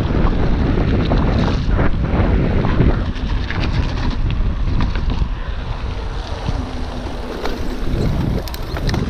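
Wind buffeting the microphone of a camera on a moving mountain bike, with many short rattling clicks from the bike as it rolls over concrete slabs and paving stones.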